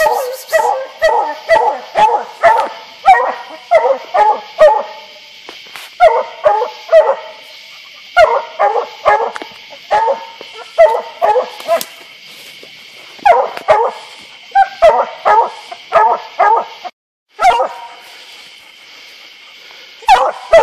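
Bear-hunting hounds barking hard in rapid bouts, about two to three barks a second with short pauses between bouts.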